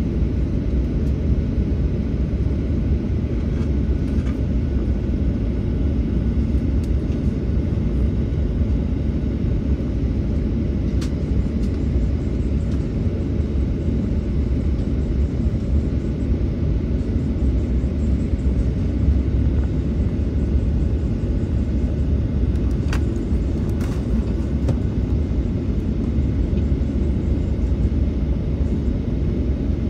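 Steady low rumble inside the cabin of a Boeing 737-800 taxiing: the engines at idle thrust, the air conditioning and the wheels rolling over the taxiway, with a couple of faint ticks.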